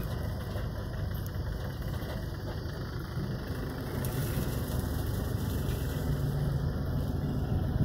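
Mahindra Yuvo tractor's diesel engine idling steadily.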